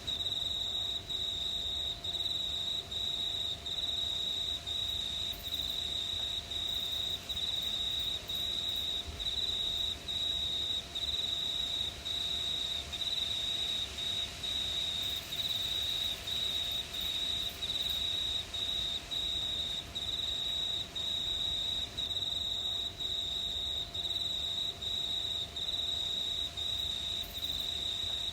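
Cricket chorus dominated by one high, steady trill that breaks off briefly about once a second.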